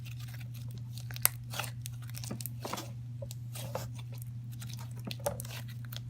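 Hands squishing and pressing a thick slime filled with tiny foam beads (microfloam) and foam chunks, giving irregular crackling and popping clicks, with one sharper pop just over a second in.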